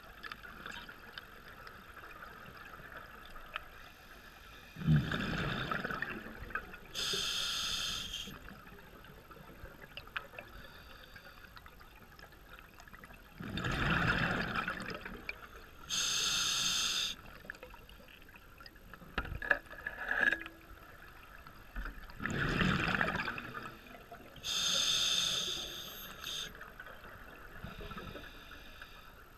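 Scuba diver breathing underwater through a regulator: three breaths, each a rush of exhaled bubbles followed a couple of seconds later by the regulator's hiss on the inhale. There are a few small clicks between the second and third breaths.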